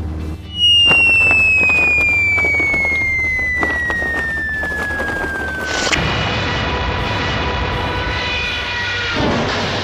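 Cartoon falling-whistle sound effect: one long whistle that slides steadily down in pitch for about five seconds over a low steady hum. It then gives way to several steady held tones for about three seconds.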